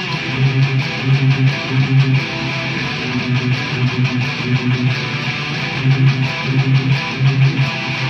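Two electric guitars played through amplifiers, playing a rhythm riff together with no drums or vocals; low notes come in short repeated bursts.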